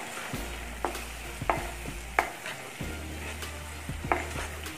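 Onion-tomato masala with spice powders sizzling in oil in a nonstick kadhai as a wooden spatula stirs it. There are several sharp, irregular knocks of the spatula against the pan.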